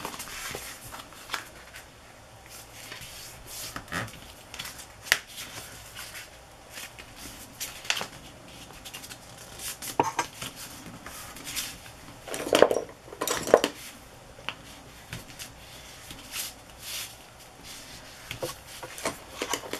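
Paper being folded and handled on a cutting mat, with scattered light clicks and taps, and two louder knocks about thirteen seconds in.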